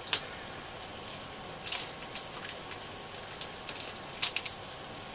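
Yellow adhesive tape being peeled and unwound by hand from the small parts inside a radio's IF transformer can: scattered short crackles and ticks.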